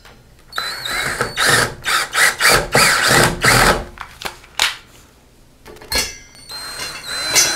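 Cordless drill/driver driving screws through a grab bar's mounting flange into wall anchors, run in a series of short bursts. After a pause with a couple of clicks, it starts up and runs steadily again near the end. The screws are only being started, not yet tightened.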